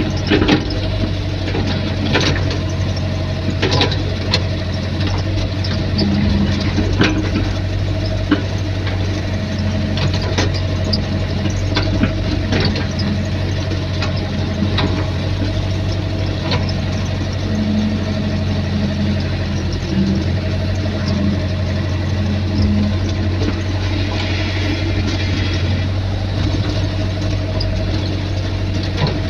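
Excavator diesel engine running steadily with a low hum and a thin steady whine, with scattered clanks and knocks throughout.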